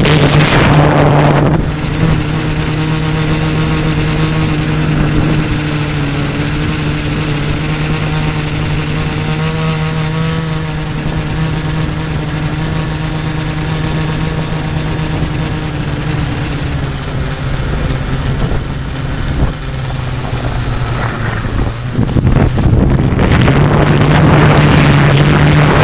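LD Power MT4010 brushless motors spinning 13-inch carbon propellers on a GF 680 multirotor drone, heard from the on-board camera as a steady hum. Wind noise rushes over the microphone during the first second or two and again from about 22 seconds in.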